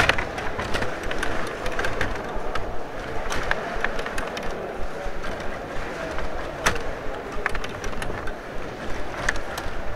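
Rod table hockey game in play: sharp plastic clicks and clacks of the puck, figures and rods, the loudest right at the start, over a steady background clatter and din.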